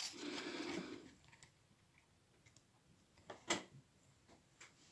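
A brief low hum of a man's voice in the first second, then a few light clicks and taps from tarot cards being handled and swapped, the loudest about three and a half seconds in.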